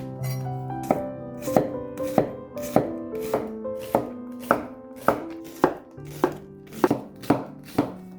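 A knife chopping on a cutting board: about a dozen sharp, even strokes, a little under two a second. Soft background music plays underneath.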